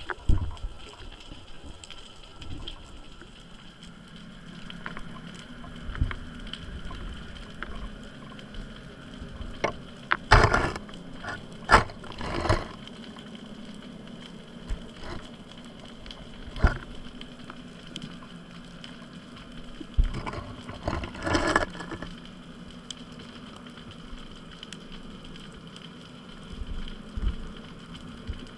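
Underwater sound picked up by a submerged camera: a steady hiss with a faint low hum, broken by scattered clicks and knocks. The clicks come in louder clusters about ten seconds in and again about twenty seconds in.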